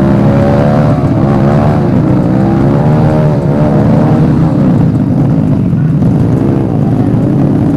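Dirt bike engines running loud on a trail ride, their pitch rising and falling with the throttle.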